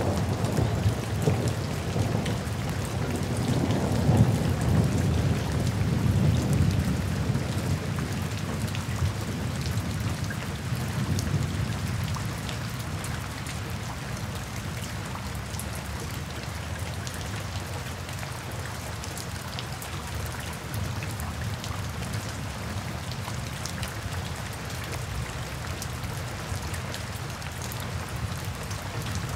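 Steady rain falling through a forest, with individual drops ticking. A low rolling rumble of thunder in the first several seconds dies away about ten seconds in.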